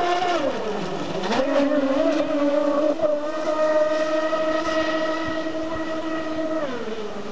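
The twin brushless outrunner motors of a large RC speedboat whine at high speed. The pitch drops about a second in, climbs back and holds steady, then falls away near the end.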